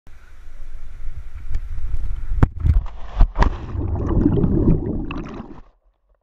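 Cliff jump into a river heard on a GoPro action camera: wind buffets the microphone during the fall, then a loud splash into the water about three seconds in. Muffled underwater bubbling and churning follow and cut off suddenly near the end.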